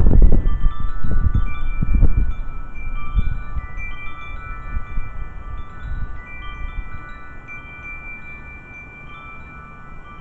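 Wind chimes ringing in storm wind, several tubes struck one after another and sustaining. Under them a heavy low rumble of thunder is loudest at the start and dies away over about the first six seconds.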